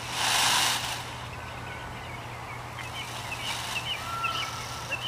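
Peacock giving a loud, harsh call in the first second, then a fainter call about three and a half seconds in, with small birds chirping in the background.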